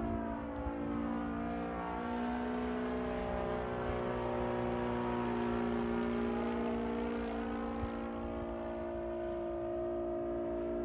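O.S. GF40 single-cylinder four-stroke petrol engine of a 1:6 scale RC F8F Bearcat model running steadily at flight power. The tone swirls as the plane flies by, closest around the middle.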